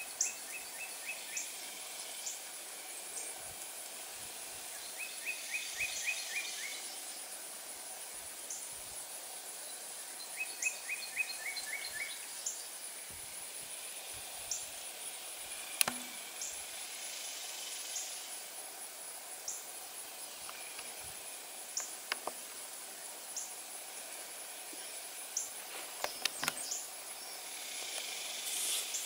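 Outdoor ambience: a steady high-pitched insect trill throughout, with a bird's short runs of quick chirps three times and scattered single high chirps. A few sharp clicks come in the middle and near the end.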